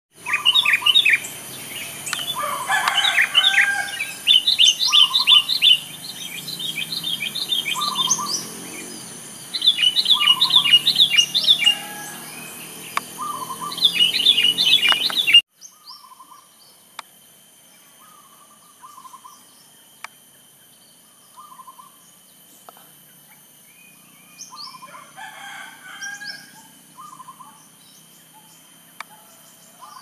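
Zebra dove (perkutut) calling short phrases every couple of seconds, mixed with many rapid high chirps from other birds. About halfway through it all drops suddenly much quieter, and the calls carry on faintly.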